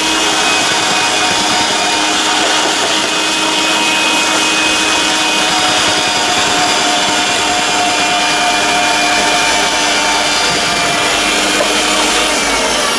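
Anex AG-2049 meat mincer's electric motor running steadily with its vegetable-slicer drum attachment, slicing cucumber pushed down the feed chute. Near the end the motor winds down with a falling whine.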